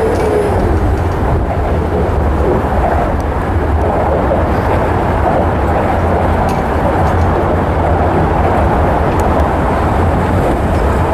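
Passing train: a loud, steady rumble with a hiss of wheel and track noise.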